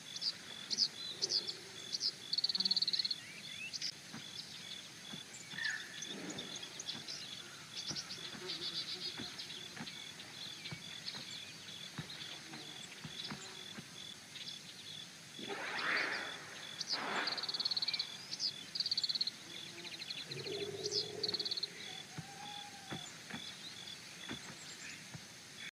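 Outdoor nature ambience: scattered short bird chirps over a steady pulsing high call, with two louder animal calls about two-thirds of the way in.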